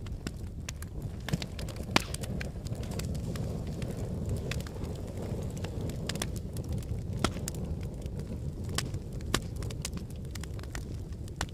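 Volcanic eruption: a steady low rumble with many irregular sharp cracks and pops, the loudest about two seconds in.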